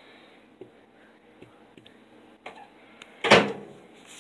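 A plastic cup set down onto a table with a single sharp knock about three seconds in, after a few light clicks of handling.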